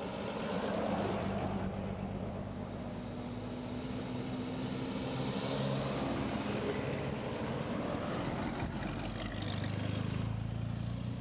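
Vintage car engines running as old open touring cars drive past one after another, the engine note and tyre noise swelling as each car comes close and passes.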